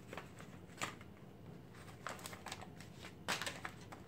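Paper backing and transfer tape of vinyl lettering being peeled and handled: a series of short, dry paper rustles and crackles, the loudest about three seconds in.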